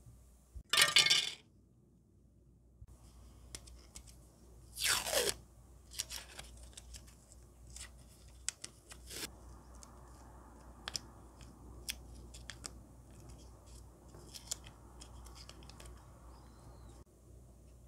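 Yellow masking tape ripped off its roll about five seconds in, a short rasp falling in pitch, then faint crinkling and small ticks as the tape is handled and wrapped around a small plastic part. A similar short rasp sounds about a second in.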